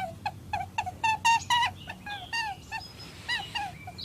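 Monkey chatter sound effect: a rapid series of short, high, squeaky calls with falling pitch, about three a second, with a brief lull in the middle.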